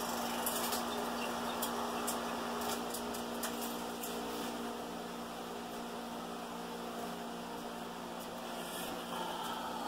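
Projector sound system running on past the end of the film: a steady electrical hum and hiss, with a few faint clicks in the first few seconds.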